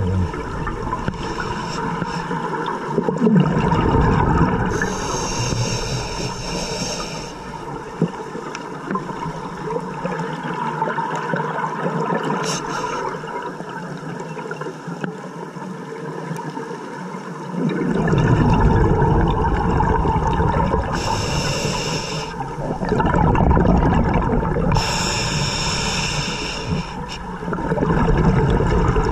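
Scuba regulator breathing heard underwater: a high hiss on each inhale through the regulator, then a low rush of exhaled bubbles, repeating every few seconds. A gap of about ten seconds without breaths falls partway through.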